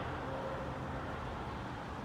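Steady mechanical rumble with a faint engine-like hum.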